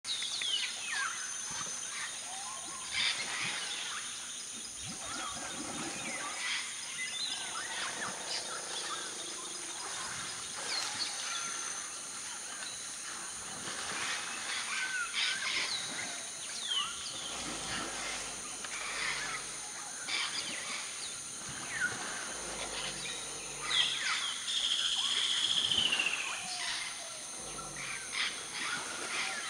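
Tropical forest ambience: many birds whistling and chirping in short gliding calls over a steady high drone, with one longer call that slowly falls in pitch late on.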